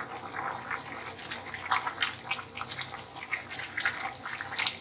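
Wooden spatula stirring watery khichuri of rice, lentils and vegetables in a metal pot: irregular small sloshes of liquid and scrapes, one after another.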